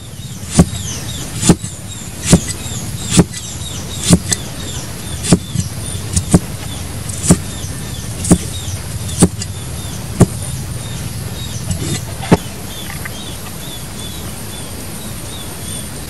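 Cleaver chopping down through vegetable onto a wooden chopping board, about a dozen sharp knocks at roughly one a second, stopping about twelve seconds in. Small high chirps repeat in the background.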